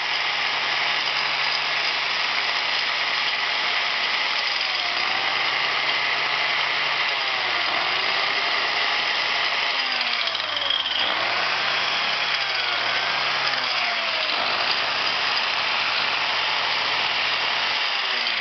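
Old DWT angle grinder's motor running steadily with no load, bedding in newly fitted Chinese-made carbon brushes against the commutator.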